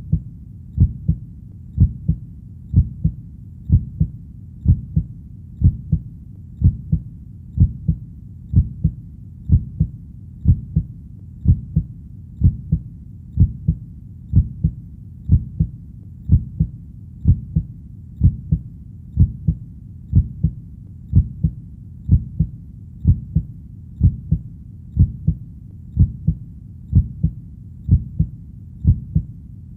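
Heartbeat, slow and steady: a low double thump (lub-dub) about once a second, over a faint low rumble between beats.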